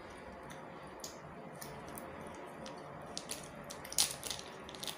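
Small plastic bag of pickles being handled and opened by hand: scattered crinkles and crackles of thin plastic, the loudest about four seconds in.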